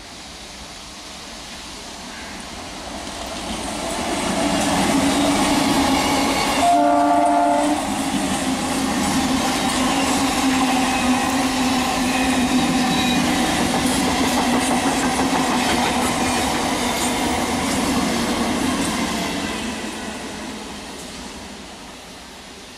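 Indian Railways EMU local train passing close: wheel-on-rail noise and a steady motor hum build up, stay loud for about fifteen seconds, then fade as it goes by. A short horn blast sounds about seven seconds in.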